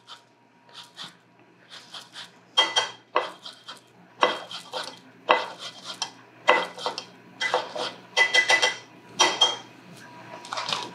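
A lemon being zested on a metal microplane grater: a series of short scraping strokes, faint at first, then louder and coming about one to two a second from a couple of seconds in.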